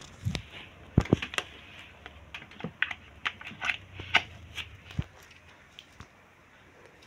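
Irregular sharp plastic clicks and knocks, about a dozen over several seconds, from a hand working a power plug and cord at a wall socket, most likely the wall fan's plug.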